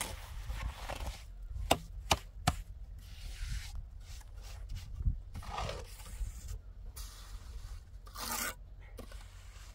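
Three sharp knocks about half a second apart, with rubbing and scraping sounds and a longer scratchy burst near the end, over a low rumble.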